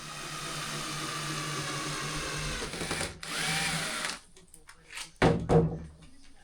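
A power drill runs for about four seconds, its pitch sagging under load and with a short break partway through, then a few loud knocks.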